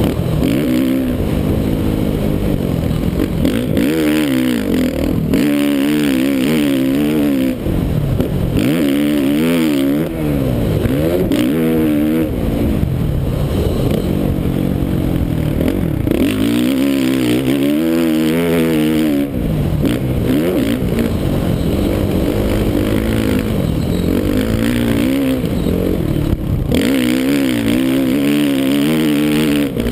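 Onboard sound of a 2013 Suzuki RM-Z450's single-cylinder four-stroke motocross engine under hard riding. The engine revs up and drops off over and over as the throttle is opened and shut between corners and jumps, with brief drops every few seconds.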